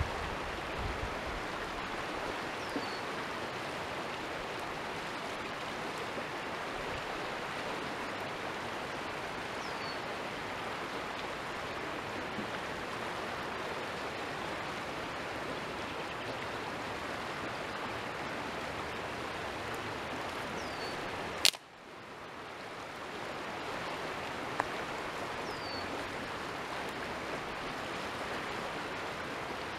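Steady rush of flowing creek water, with four faint, short, high chirps that fall in pitch scattered through it. About two-thirds of the way through comes a sharp click, after which the rush drops out and swells back over a couple of seconds.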